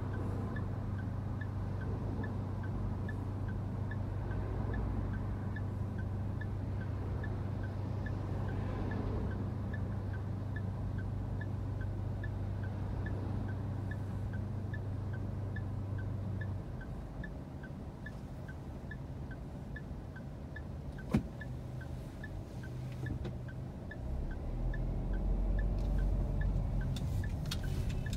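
Car's turn signal ticking steadily, about three ticks a second, with the engine's steady low hum as the car waits at a light. There is one sharp click about three-quarters through, and near the end a louder low rumble as the car pulls away.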